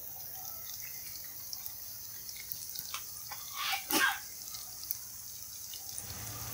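Oil sizzling gently in a frying pan around pieces of vegetarian mock mackerel and tofu, with scattered small pops. There is a brief louder sound about four seconds in.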